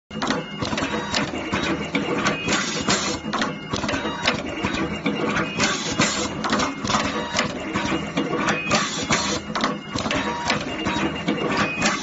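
Automatic single-end wire stripping, crimping and tinning machine running, processing wires: dense, irregular clicking and clacking of its moving heads, with short whining tones coming and going.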